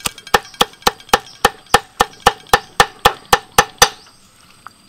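Cleaver chopping soft red chili peppers on a wooden chopping board: a steady run of sharp knocks, about four a second, that stops about four seconds in.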